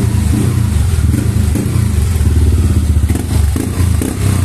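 Yamaha NMAX scooter's single-cylinder four-stroke engine idling steadily. It has been freshly rebuilt with a new crankshaft and is running after reassembly.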